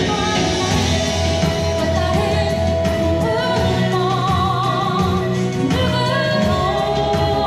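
A singer performing a Korean song live over instrumental accompaniment, holding long notes with a wavering vibrato.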